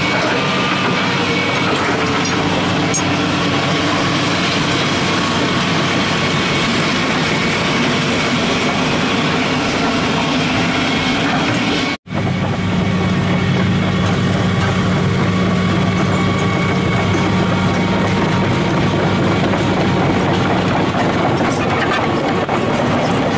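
Hitachi hydraulic excavator's diesel engine running steadily under a continuous noise of heavy machinery. The sound cuts out for an instant about halfway through, then resumes at the same level.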